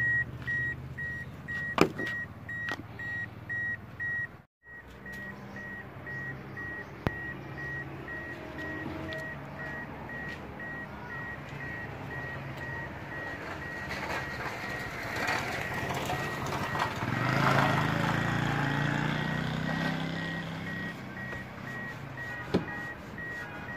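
A rapid string of high electronic beeps, cutting off about four seconds in. Then a low background of rustling and hiss, louder for a while past the middle, with an occasional sharp click.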